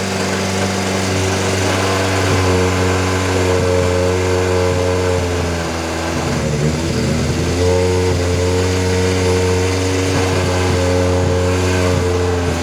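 An engine running steadily at a constant speed, its pitch sagging slightly about halfway through and then steadying again.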